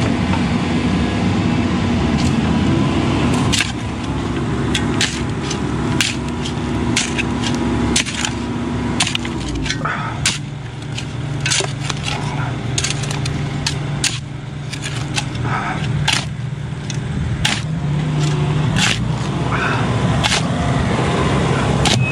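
Hand pick striking packed dirt and stones, sharp strikes about once a second starting a few seconds in, over the steady running of a diesel excavator's engine.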